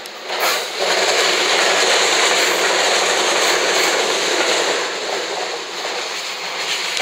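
JR West 227 series three-car electric train passing close by while climbing a grade. A loud steady rush of wheel and running noise swells up about half a second in.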